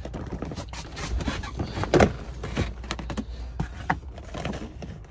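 Clear plastic storage bins being handled and shifted, giving a string of hollow plastic knocks, clicks and rattles. One knock about two seconds in is louder than the rest.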